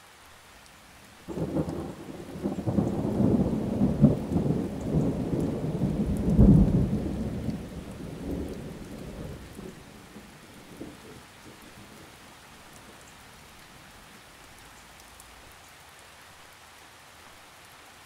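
Steady rain with a roll of thunder that breaks in suddenly about a second in, swells twice and rumbles away over several seconds, leaving the rain alone.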